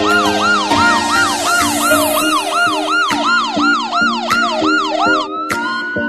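Electronic siren in a fast yelp, about three sweeps a second, switching to a slow wail about five seconds in. Background music with changing chords and a few sharp clicks plays underneath.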